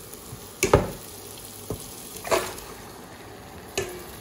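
Raw chicken pieces going from a steel bowl into a hot non-stick wok of frying curry paste: four sharp knocks and thuds, the loudest about a second in, over a steady sizzle.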